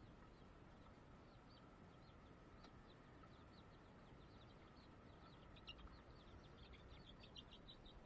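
Young chickens' chicks peeping faintly in a brooder box: short high chirps, growing more frequent in the second half.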